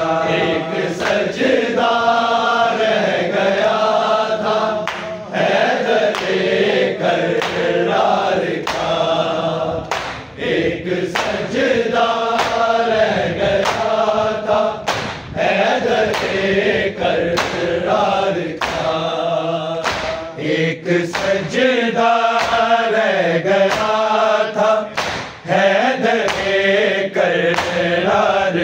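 Urdu noha, a Shia lament, chanted by male reciters in unison, with a steady beat of sharp strikes about once a second under the voices.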